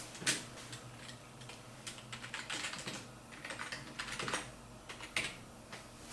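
Typing on a computer keyboard: a run of irregular key clicks, with a sharper keystroke about a third of a second in and another about five seconds in.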